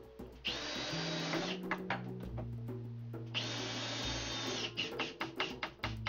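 Two bursts of a power drill running, each about a second long, followed by a quick run of clicks, over background guitar music.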